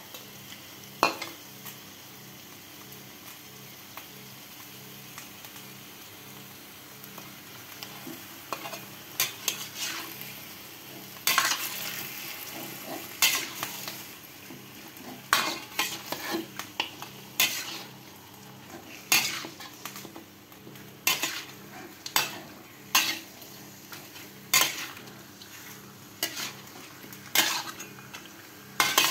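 Raw chicken pieces sizzling in a metal wok, with a metal spatula scraping the pan and turning the meat. The scrapes start about nine seconds in and come every second or two.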